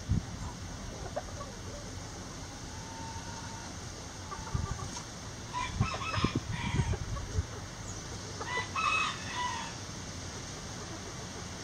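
Backyard chickens clucking and calling, with a cluster of short calls about halfway through and another burst about three-quarters of the way in, and a few soft low thuds.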